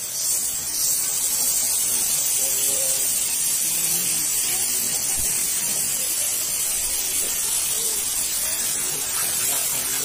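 Waterfall's falling water rushing in a steady, even hiss, heaviest in the high end.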